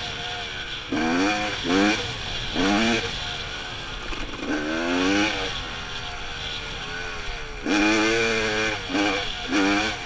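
Dirt bike engine revving up and falling back about five times as the rider accelerates along a trail, over a steady rushing noise.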